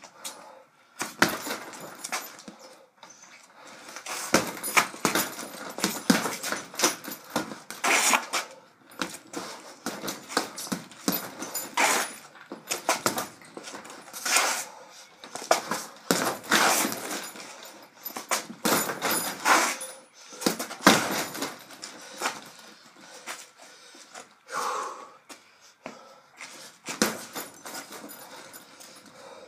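Punches landing on a heavy bag in an irregular run of sharp thuds.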